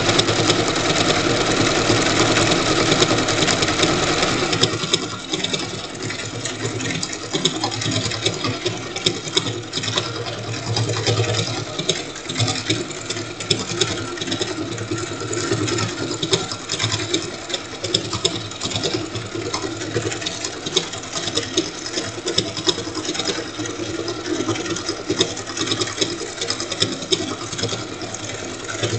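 Sewing machine running continuously, sewing a decorative stitch over the seams of a crazy quilt block with a fast, even chatter of needle strokes. It runs louder for about the first four seconds, then carries on more quietly.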